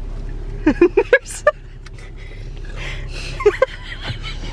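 Steady low hum of a car idling, heard inside the cabin, with a few short voice sounds about a second in and again near the end.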